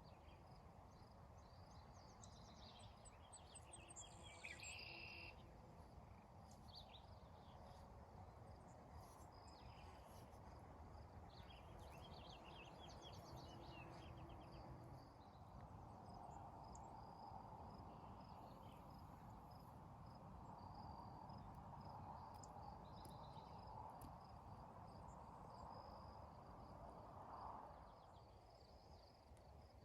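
Faint outdoor ambience: birds chirping and giving short trills now and then, over a steady pulsing insect chirr and a low rumble of background noise.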